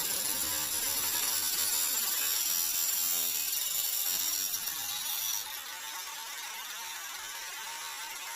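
Angle grinder cutting into a steel brake rotor: a steady high whine with a hiss of metal being ground. About five seconds in the high whine stops and the sound drops to a quieter hiss.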